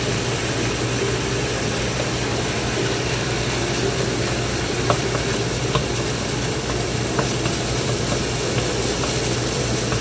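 Chicken and rice frying in a hot pan, a steady sizzle, with a spatula clicking against the pan a few times.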